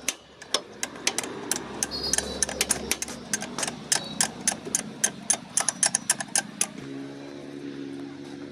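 Quick, irregular metallic clicking from hand tools at work on a car engine during a water pump replacement, several clicks a second. It stops near the end, where a steady low hum takes over.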